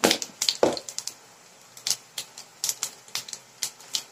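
Mustard and cumin seeds spluttering in hot oil in a nonstick frying pan: irregular sharp pops and crackles, a couple of louder ones near the start.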